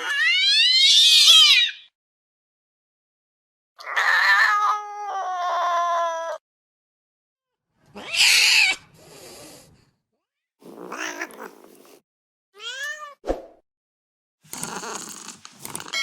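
Angry domestic cat sounds, one after another with short silences between: a high, wavering yowl, then a long yowl that falls in pitch, then harsher noisy hisses and snarls, with a short rising-and-falling cry near the end.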